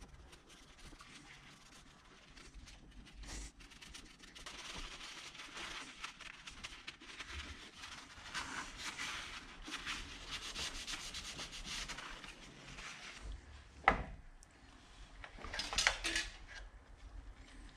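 Gloved hand rubbing and scraping at the engine's water pump sealing surface to clean it, in uneven stretches. A sharp click comes about fourteen seconds in, and another short burst of scraping follows.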